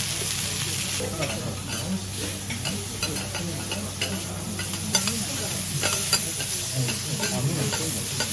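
Beef searing and sizzling steadily on a hot steel teppan griddle, with a metal spatula scraping and clicking against the griddle as it cuts and turns the meat; the sharpest clicks come about five and six seconds in. A low steady hum runs underneath.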